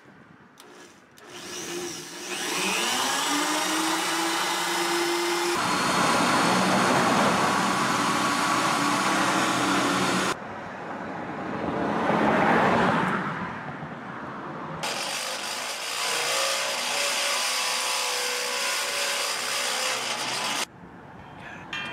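Corded electric drill with a step drill bit spinning up with a rising whine about a second in, then drilling a hole through a steel truck frame rail. The sound shifts abruptly several times and stops shortly before the end.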